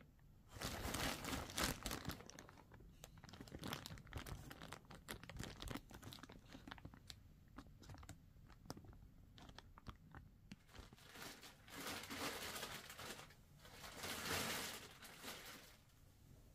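Irregular crinkling and crunching rustles with scattered clicks, louder near the start and again near the end.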